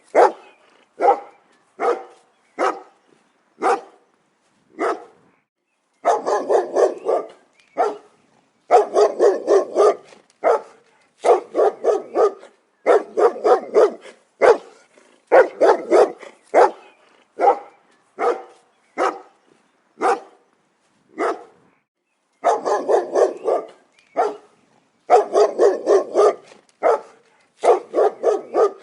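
A dog barking repeatedly: some single barks spaced a second or so apart, and some quick runs of four to six barks in a row, with short silent gaps between them.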